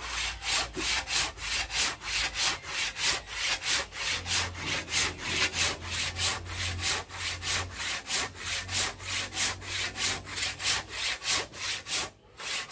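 Handsaw cutting through kakawate (madre de cacao) wood in quick, even strokes, about four a second, with a brief pause near the end.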